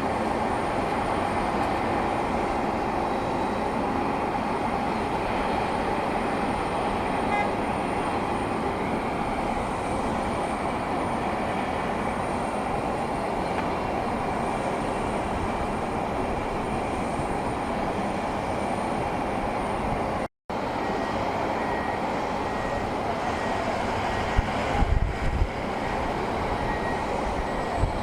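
Steady roar of jet airliner engines, a sustained even rumble, with a split-second dropout about twenty seconds in and a few low thumps near the end.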